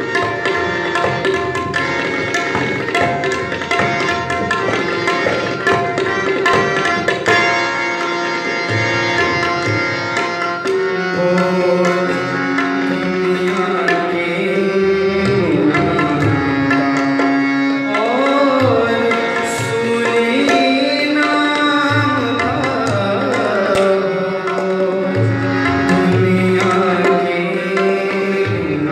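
Tabla duet: two players striking tabla in fast rhythmic patterns over a steady held melodic accompaniment. The strokes are dense and rapid for the first third, then thin out as gliding, bending pitches come in.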